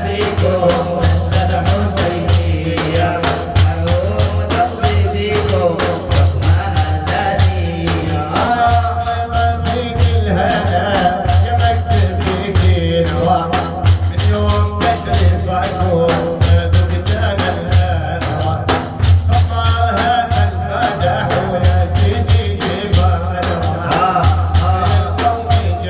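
Music: an Arabic devotional praise song (madih), a sung melody over a dense, steady beat of frame drums and jingling tambourine.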